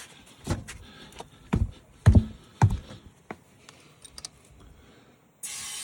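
A handful of dull thumps and light clicks from handling a car tyre that is off its bead. Near the end, a steady hiss of compressed air switches on abruptly as the tyre is inflated to seat the bead.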